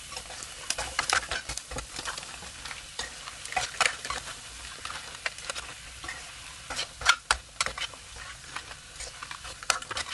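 Metal spatula scraping and knocking against a metal wok while crab pieces in curry sauce with onion and egg are stir-fried over a steady sizzle, the stage where the onion softens and the egg sets. The knocks come irregularly, loudest about seven seconds in.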